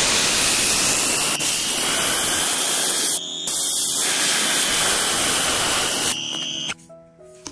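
Small electric air blower spinning up to a steady high whine under a loud rush of air, with a brief dip about three seconds in; it shuts off suddenly near the end.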